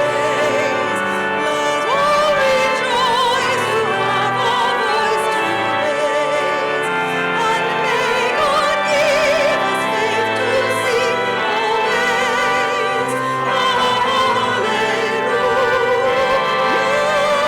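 Singing with strong vibrato over held chords of sustained instrumental accompaniment, as in a church hymn or anthem.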